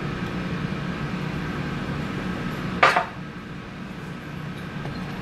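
Steady low room hum, as from a fan or appliance. About three seconds in comes one sharp knock, a brief handling bump, after which the hum is a little quieter.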